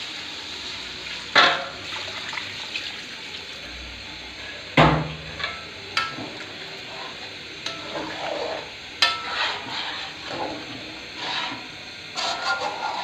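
Water added to a hot pot of fried chicken and potatoes, sizzling and bubbling as the curry gravy is made. A spoon stirs and knocks against the pot several times, the sharpest clanks about a second and a half and five seconds in.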